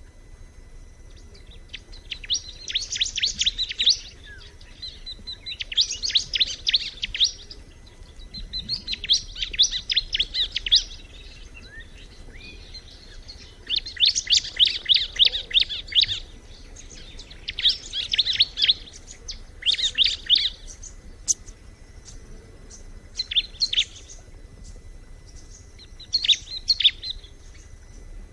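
Bar-winged prinia (ciblek) singing: phrases of fast, high, chattering chirps, each one to two seconds long, with short pauses between them. The phrases grow shorter near the end.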